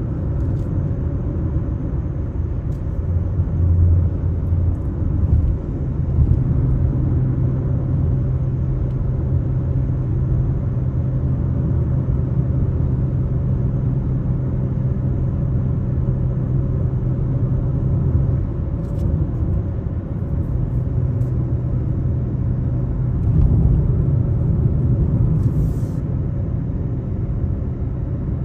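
Car driving at highway speed: a steady road and engine rumble, with a low engine hum that steps up in pitch about six seconds in and falls again later on.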